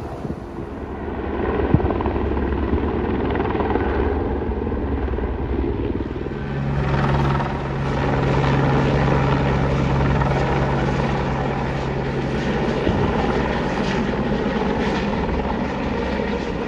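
Helicopter flying overhead, its rotor and engine making a steady drone that grows stronger about seven seconds in.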